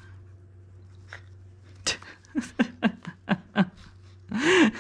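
Goldendoodle puppy making a quick run of short yips and play growls while it struggles against having a bow tied on, ending in a louder, longer growl.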